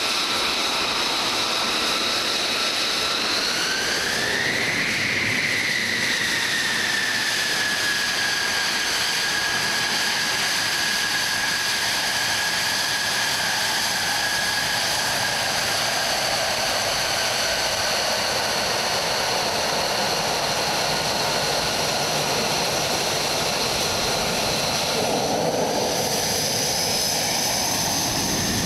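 The Pratt & Whitney F135 turbofan of an F-35A Lightning II running as the jet taxis, a loud steady turbine whine over a rush of exhaust. About four seconds in, the whine rises in pitch as the throttle comes up, then eases back slightly and holds; near the end a deeper rushing sound swells.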